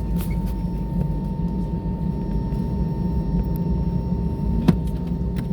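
Steady low rumble of an airliner cabin after landing, with a thin steady whine held throughout. A single sharp click sounds near the end.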